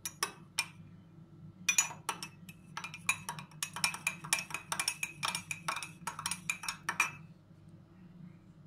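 Metal spoon stirring tomato paste into hot water in a glass mug, clinking rapidly against the glass with a faint ring. The clinking stops about seven seconds in.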